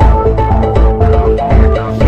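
Background music with a steady beat of bass thumps about twice a second under a repeating melody.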